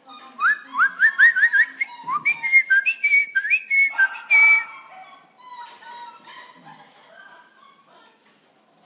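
Corgi puppies whining in short rising yelps, several a second and overlapping, loudest over the first four and a half seconds, then fainter and sparser until they fade out.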